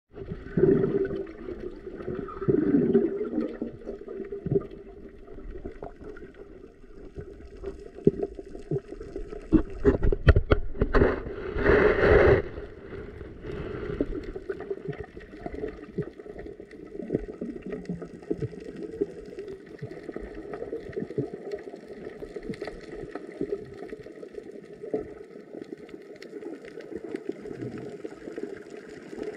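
Muffled underwater sound picked up through an underwater camera: a steady wash of water noise with scattered clicks and knocks. A louder rush of noise comes about eleven to twelve seconds in.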